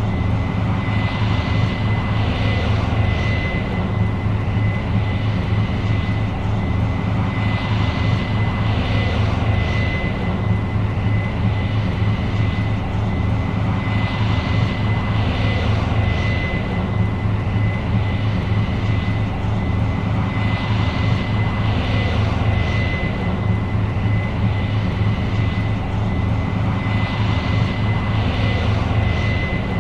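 New Holland CR 7.90 combine running steadily under load while harvesting corn: a constant deep engine drone with a thin high whine held on one pitch, and a hissing rush that swells and fades about every six seconds.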